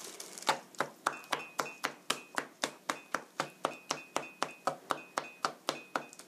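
Tip of a large kitchen knife tapping rapidly and evenly through boneless chicken thigh meat onto a plastic cutting board, about four taps a second. The meat is being scored all over so the seasoning soaks in.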